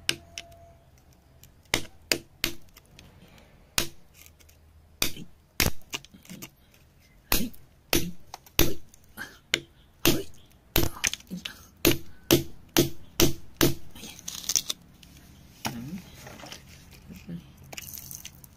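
A flat metal tool chipping and scraping at sandy rock around an embedded orange gemstone: many sharp taps and cracks, irregular and often in quick runs. There are a couple of brief hissing sprays of grit and water.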